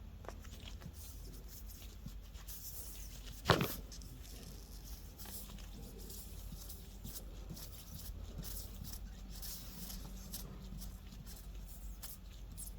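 Faint scratching and rasping of a tire reamer being worked into a puncture in a mower tire's rubber, with one sharp knock about three and a half seconds in, over a low steady hum.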